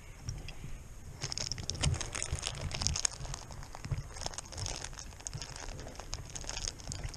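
Plastic lolly wrapper crinkling and rustling close to the helmet microphone in irregular crackly spells, over soft low thumps.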